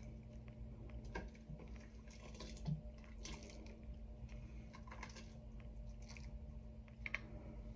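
Faint, scattered soft clicks and taps of a plastic ladle against a ceramic bowl as cooked beans and broth are served, over a low steady hum.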